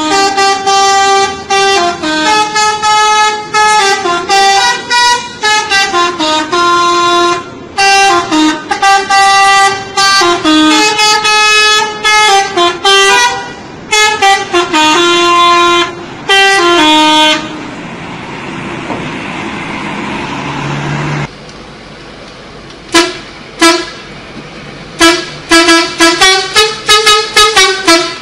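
Bus's multi-tone 'telolet' air horn playing a tune of stepped notes for about seventeen seconds. Then a few seconds of steady rushing noise, and near the end a quick run of short horn toots.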